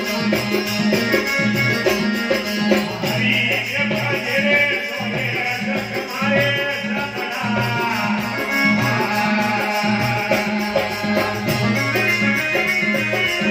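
Live Rajasthani devotional bhajan music: a man singing over a harmonium, with a dholak drum keeping a steady beat and jingling hand percussion (kartal) shaking along.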